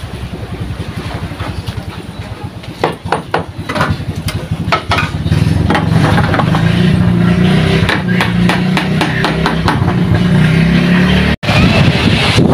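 Small single-cylinder gasoline boat engine running, with knocks and clicks of handling at first, then picking up speed about halfway through and running fast and steady. Near the end the sound cuts to surf and wind.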